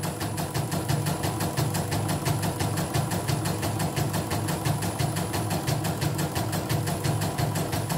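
CNY portable computerized embroidery machine stitching a design at speed, its needle bar going in a rapid, even rhythm over a steady motor hum. It runs smoothly with no hitch, its jammed presser foot repaired and reset.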